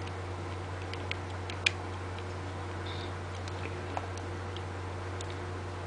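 A few faint, sharp clicks of small plastic model-kit parts being handled, as a shield and its arm connector are pulled apart and refitted; the loudest click comes about one and a half seconds in. A steady low electrical hum runs underneath.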